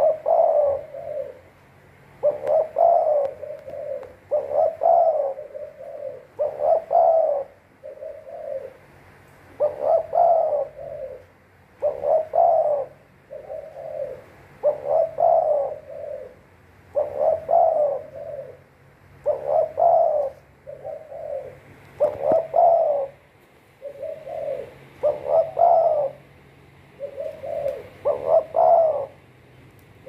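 Spotted dove cooing in a cage, repeating a short phrase of a few notes over and over, about every two seconds.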